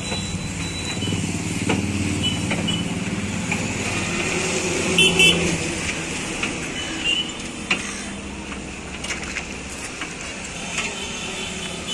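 Engine and road noise from inside the cabin of a moving Maruti Eeco van, with a short horn toot from traffic about five seconds in. After that comes a quieter background with a few faint clicks.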